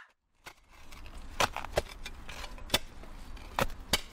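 Handling noise in the dark: a low rumble with a string of sharp knocks and clicks, about five of them louder, starting after a moment of dead silence.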